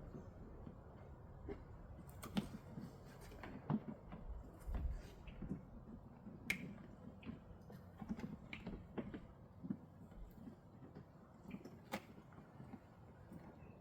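Irregular light clicks and knocks of metal tube-frame parts being handled and fitted together, with a few sharper clicks among them.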